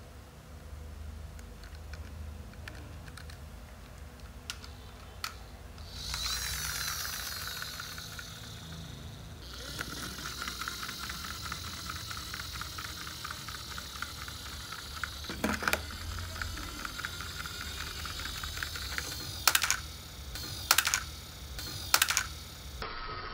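Small plastic toy truck with an excavator arm rolling on its plastic wheels, a steady rattly whir from about six seconds in, then several sharp plastic clacks near the end as the toys knock into each other and tip over.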